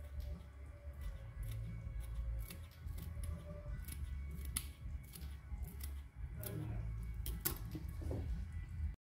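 Small kitchen scissors snipping a fresh red chilli into pieces: a string of short, sharp snips at uneven intervals over a low rumble. It all cuts off suddenly near the end.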